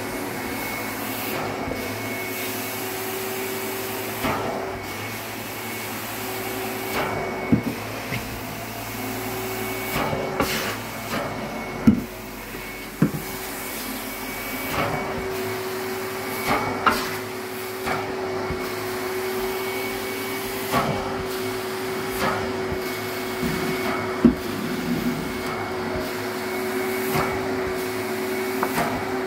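Carpet extraction machine's suction running steadily with a constant whine as the extraction wand is pulled over the carpet. Sharp knocks and clacks come every few seconds, the loudest about halfway through.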